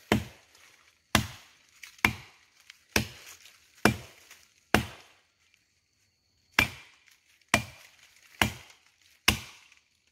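Freshly sharpened axe chopping into a fallen tree trunk: sharp blows about one a second, ten in all, with a pause of nearly two seconds midway.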